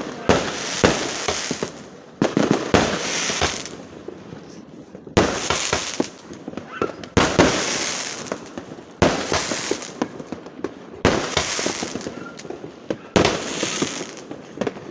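Fireworks going off in a series of loud bursts, about one every two seconds, seven in all. Each burst is followed by dense crackling that fades away.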